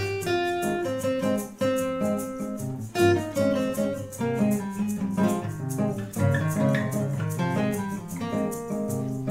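Acoustic guitar played fingerstyle: low bass notes under a melody of quickly plucked higher notes.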